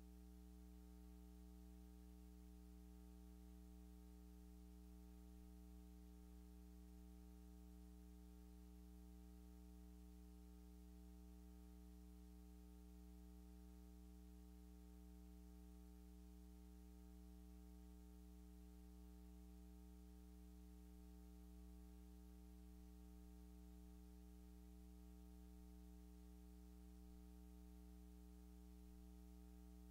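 Near silence with a faint, steady electrical hum that holds one unchanging low tone with its overtones.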